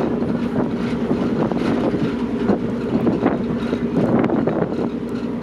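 Car ferry's engines running with a steady low hum, with wind buffeting the microphone in irregular gusts on the open deck.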